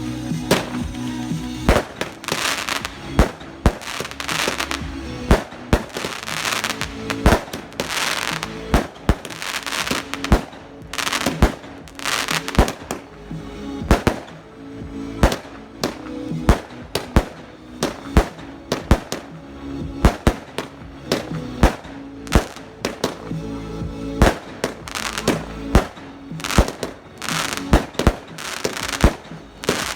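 Amateur consumer fireworks going off in a dense barrage: sharp bangs, often one or two a second, with hissing and crackling between the bursts.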